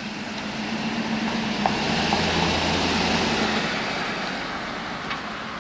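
Mercedes-Benz S500L W140's V8 running as the car drives slowly past. Engine hum and tyre noise swell to a peak about two to three seconds in. The low engine note drops away soon after and the noise fades as the car moves off.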